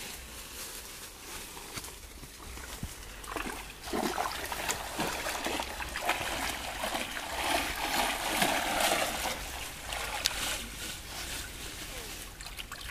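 Shallow stream water splashing and sloshing as a bundle of leafy branches is pushed and swished through it. The splashes are irregular, start about three seconds in and are heaviest a little past the middle.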